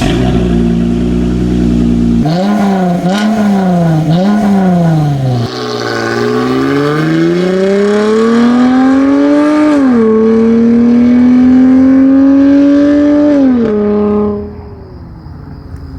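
Dodge Charger SXT's 3.6L V6 through a dual stainless cat-back exhaust: idling briefly, then three quick revs, then accelerating with the pitch climbing steadily, dropping at an upshift about ten seconds in and climbing again before the throttle lifts and the sound fades near the end.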